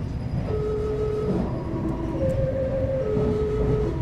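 Meitetsu limited-express train's music horn playing its melody: a run of steady electronic notes, each held just under a second and stepping up and down between a few pitches. The train's running rumble sits underneath.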